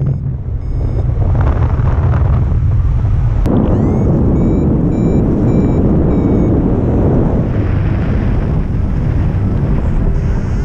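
Wind rushing over the camera microphone of a paraglider pilot in flight: loud, steady buffeting with a heavy low rumble. A few short, faint high beeps sound near the middle.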